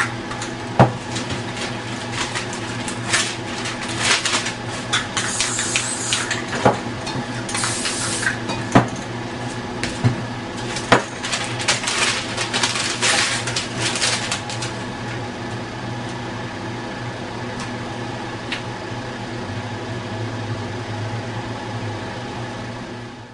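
Spray painting at work: short hisses of aerosol paint cans, with sharp knocks and clatter of cans and tools against the surface, over a steady hum. After about fifteen seconds the knocks and hisses stop and only the hum remains.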